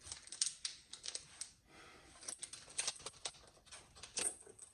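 Crinkling and crackling of a Ritter Sport chocolate bar's plastic wrapper being pulled open by hand: quick, irregular crackles.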